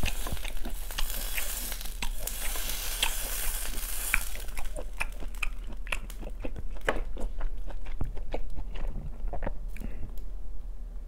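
Beef sizzling on a small grill pan over a mini brazier, the hiss fading after about four seconds. Close-miked chewing runs throughout, with many sharp wet mouth clicks.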